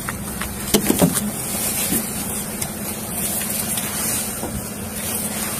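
A vehicle engine idling steadily, with cloth being handled close to the microphone and a few short clicks.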